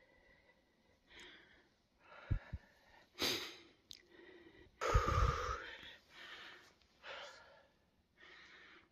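A person breathing close to the microphone, several uneven breaths about a second apart with a louder one about halfway through, and a couple of soft low bumps.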